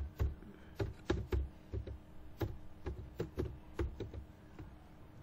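Computer keyboard typing: irregular key clicks, about three a second, that stop about four and a half seconds in.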